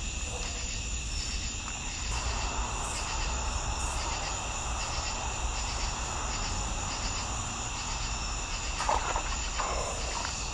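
Night chorus of crickets and other insects: steady high trills, with one call pulsing a little more than once a second. Under it, footsteps and brush rustle as someone pushes through undergrowth, starting about two seconds in.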